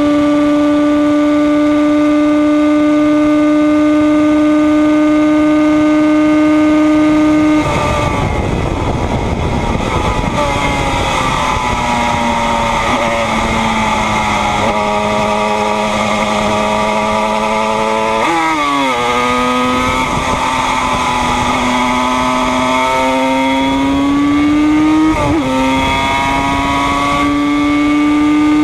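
Yamaha RD 250 two-stroke twin race engine heard onboard, holding a steady high-revving note. About seven and a half seconds in the note drops away under a rush of noise, then the engine runs at lower revs before climbing again, its note broken sharply twice, about 18 and 25 seconds in, as the gears change.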